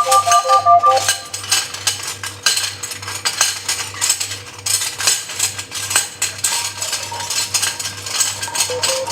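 Dense clatter of clicks and rattles, like cutlery or dishes, over a low pulsing hum, mixed as a soundscape. A recorder's repeated notes stop about a second in, and a rising line of recorder notes begins near the end.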